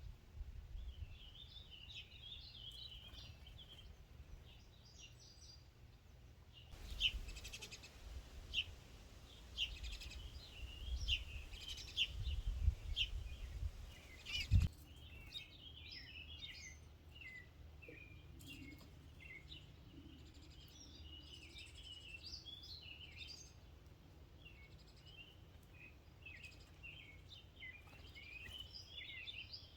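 Several small birds chirping and singing in quick, overlapping notes. From about a quarter of the way in to about halfway, a low rumble with a few sharp knocks rises under the birdsong and ends in one louder knock.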